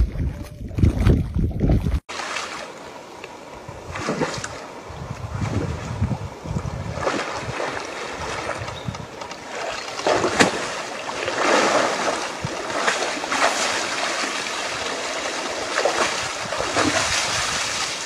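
Low wind rumble on the microphone, then after a cut about two seconds in, a steady rush of wind and rough water with repeated surges like waves splashing.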